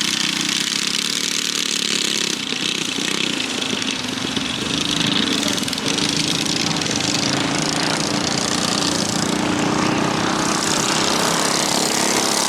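Small mini bike engines running steadily as the bikes race around the track.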